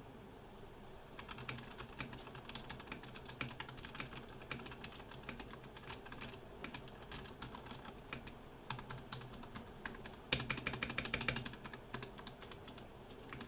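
Typing on a Royal Kludge RK71 mechanical keyboard with brown tactile switches: quick irregular keystrokes begin about a second in, pause briefly near the middle, then come in a fast dense flurry about two-thirds through, the loudest part.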